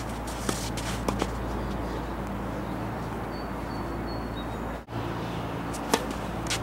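Tennis rally: a few faint pops of racket strikes and ball bounces in the first second or so, then one sharp, loud racket-on-ball hit near the end, over a steady low background hum.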